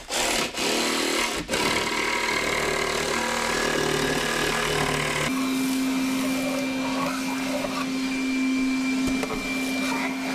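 A jigsaw cutting plywood for about the first five seconds, then a Makita cordless vacuum cleaner running with a steady hum as its crevice tool picks up debris.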